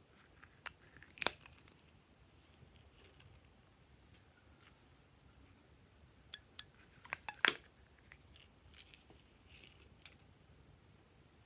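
Sharp clicks and taps from a Skittles-pack-shaped case being handled and opened. The loudest come a little over a second in and about seven and a half seconds in. They are followed by a soft rustle as glitter heart confetti is tipped out onto slime.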